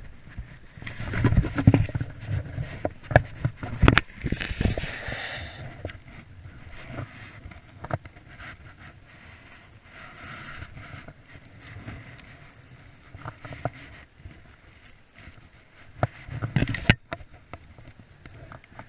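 Rustling, scraping and irregular thumps of a person climbing up a grassy riverbank, brushing through plants and handling a rope, with knocks close to the camera. The heaviest thumps come about a second in, around four seconds in and near the end.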